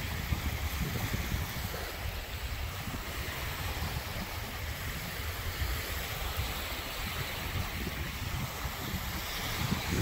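Small waves washing onto a sandy beach, with gusty wind rumbling on the microphone that grows a little stronger near the end. No bird calls stand out.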